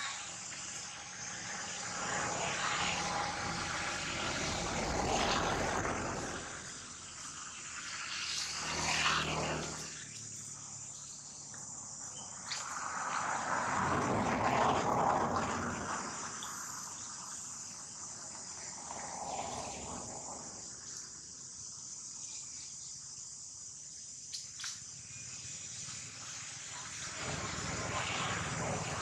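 Steady, high-pitched insect chorus, with broader noise swelling up and fading every few seconds.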